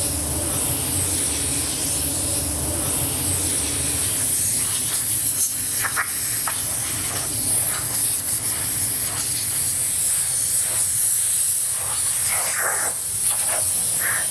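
Compressed-air blow gun hissing steadily as its jet is played over wet paint on a guitar body, pushing the paint into swirls.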